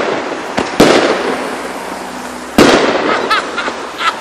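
Consumer aerial fireworks going off: a small pop, then a loud bang about a second in and another about two and a half seconds in, each trailing off in a fading rumble.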